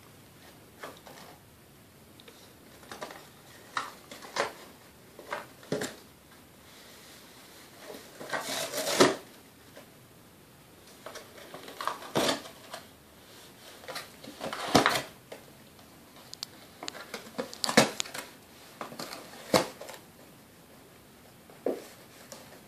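A small dog rummaging in a small cardboard box with its nose and mouth, pushing it over carpet. It makes irregular crinkles, scrapes and taps, in scattered bursts with quiet gaps between.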